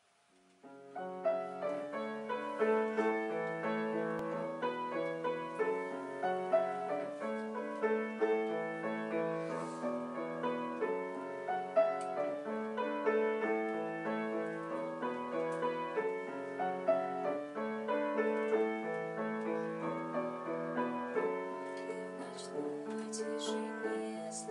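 Grand piano playing the opening of a lullaby for soprano and piano, a steady flowing pattern of overlapping notes that starts about a second in.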